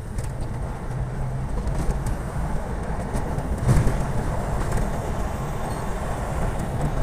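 Car engine running and tyres on the road, heard from inside the cabin while driving: a steady low hum.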